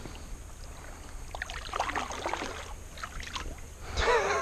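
Kayak paddle strokes in shallow creek water from a Hobie Quest 13 sit-on-top kayak: soft splashes and drips over a low steady rumble. A short wavering call rises near the end.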